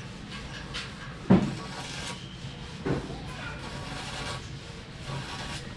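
Two sharp knocks about a second and a half apart, the first the louder, from work at the base of a stainless steel railing being fitted.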